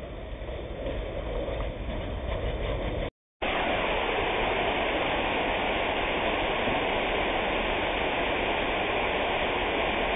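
Steady rushing of river water over riffles in the Siuslaw River. It starts abruptly after a short dropout about three seconds in, and is preceded by a fainter, steady noise.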